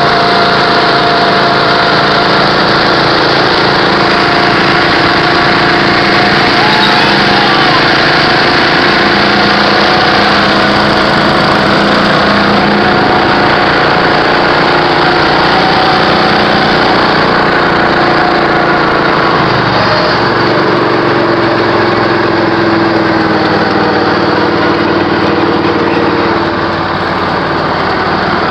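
Riding lawn mower engine running loud and steady as the mower drives along, with other mower engines close by; the engine note shifts lower about two-thirds of the way through.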